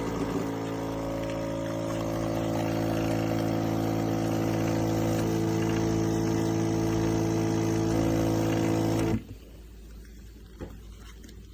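Espresso machine's pump running steadily with a loud buzzing hum as it pulls a shot, then cutting off abruptly about nine seconds in.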